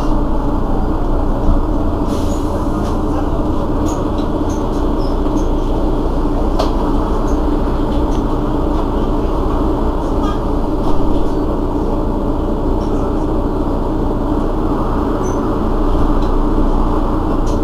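Mercedes-Benz Citaro city bus's rear-mounted diesel engine idling steadily while the bus stands at a stop, a loud even rumble with a couple of faint clicks.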